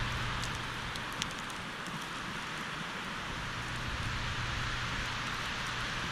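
Wind and heavy blowing snow hissing steadily, with a few faint ticks about a second in and a faint low hum underneath.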